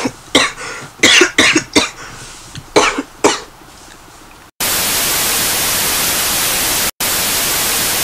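A man coughing hard, a fit of about seven coughs over three and a half seconds. About four and a half seconds in, loud steady static hiss starts abruptly, cutting out for an instant a couple of seconds later.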